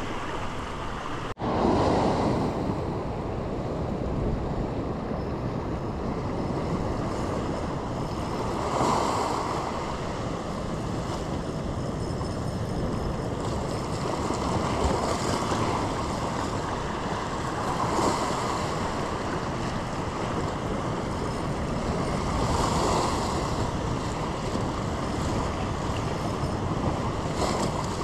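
Ocean swell washing and surging against a rock ledge, swelling up every few seconds, with wind buffeting the microphone.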